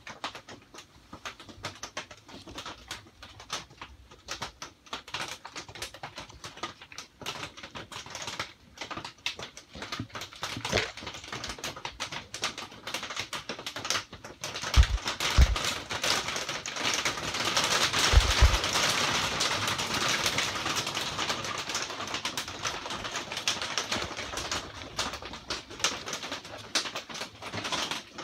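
Rain pattering on a greenhouse roof: a dense, irregular run of drips and taps that grows heavier and louder about halfway through, then eases toward the end. A couple of dull knocks stand out in the middle.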